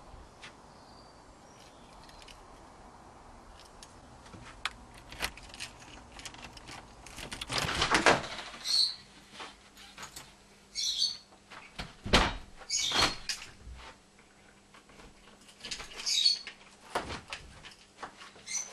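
A front door being unlocked with a key, opened and shut: clicks of the key, lock and handle, knocks of the door, and a few short high chirps between them.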